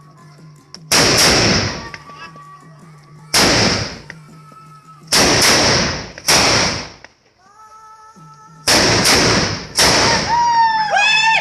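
Firecrackers going off one at a time: about nine loud sharp bangs at irregular intervals, several in a quick run near the end, each with a brief echoing tail.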